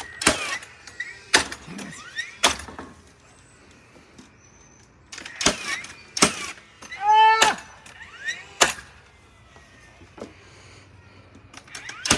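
Cordless framing nailers, a DeWalt 60V FlexVolt and a Milwaukee M18 Fuel, firing 3-inch ring-shank galvanized nails into wooden fence rails. The shots come about six times, unevenly spaced, with brief whirring from the tools' motors in between.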